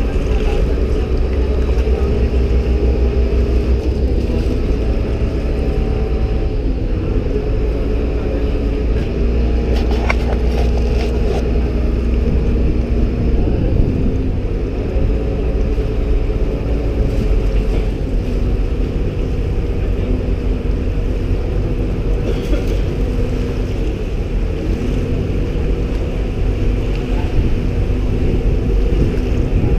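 Engine of a Venetian passenger water bus running steadily under way: a continuous low drone whose pitch shifts slightly a few times as the boat changes speed, over a steady rumble.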